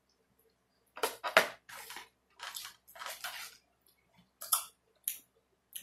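Eating utensil scraping and tapping against a takeout food container, in a run of about eight short strokes, the loudest about a second and a half in.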